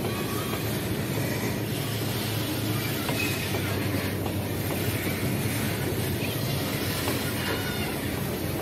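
Loaded freight hopper wagons rolling past in a steady rumble of steel wheels on rail, with faint wheel squeal now and then and light clicking over the rail joints.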